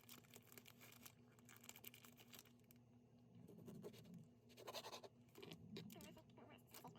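Faint scratching and light irregular clicks of kitchen food preparation, over a low steady hum.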